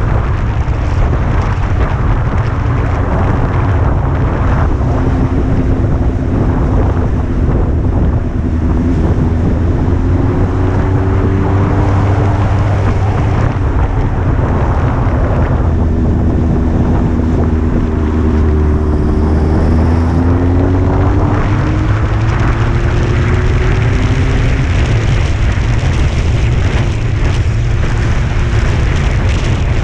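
Honda CBR600's inline-four engine running as the bike rides along, its pitch slowly rising and falling with the throttle, with wind noise on the microphone.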